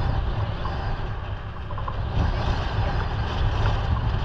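Wind buffeting the microphone on a moving motorcycle, a heavy fluctuating rumble with the rush of road and engine noise beneath.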